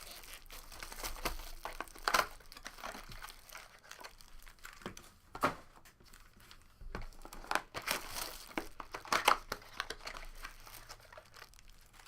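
Foil trading-card pack wrappers crinkling and being torn open by hand, with several short, loud rustling crackles.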